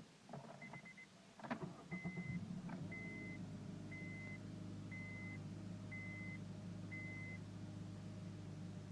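Clicks and rattling, then a clunk, followed by a car's electronic warning chime beeping about once a second, six times, over a steady low hum.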